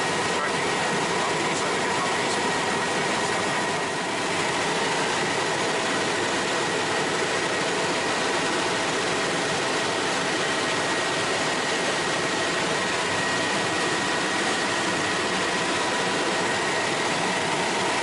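Bell 206L4 LongRanger helicopter in cruise flight, heard from inside the cockpit: a steady, dense rush of turbine and rotor noise with a thin high whine held on one pitch.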